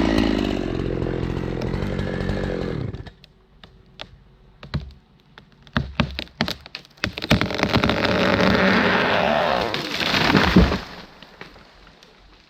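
Chainsaw cutting ash wood, then the engine note dropping away about three seconds in. A few seconds of scattered knocks and cracks follow before the saw cuts again for about three seconds and falls away near the end.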